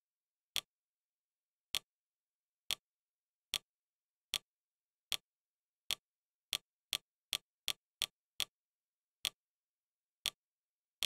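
Fire TV interface navigation clicks: short, sharp ticks, one for each remote press as the menu highlight moves, about sixteen in all, coming faster in the middle.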